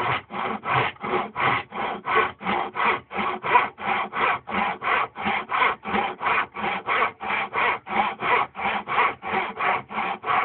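Tenon saw cutting through a pen blank by hand in quick, even back-and-forth strokes, about three to four a second.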